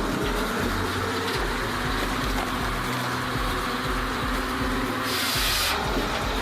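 Firewood processor running steadily, with a short hissing burst about five seconds in.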